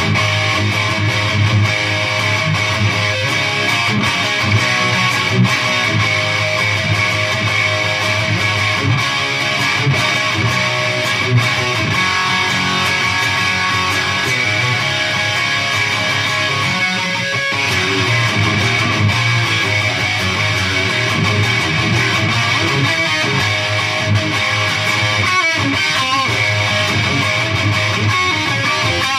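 Electric guitar played through a Peavey Triple XXX II tube amp head and 2x12 cabinet on its crunchy overdriven channel, playing continuous hard-rock riffs.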